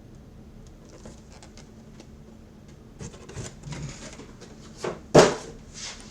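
Helmets in their cases being handled and set down: scattered rustling and small knocks, with one sharp, loud knock about five seconds in.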